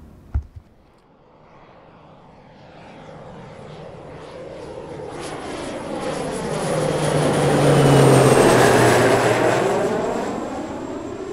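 A twin-engine jet airliner flying overhead: its engine noise swells to a peak about eight seconds in and then fades as it passes, its whine and hum dropping slightly in pitch as it goes by. A short sharp click sounds just before the swell begins.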